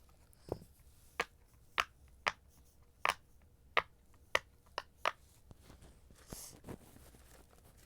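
Silicone pop-it fidget toy having its bubbles pushed through one at a time: about nine sharp pops at uneven intervals, with a couple of fainter ones near the end.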